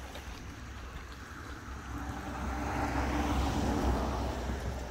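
A motor vehicle passing by, its engine growing louder to a peak about three and a half seconds in and then fading away, over a steady low wind rumble.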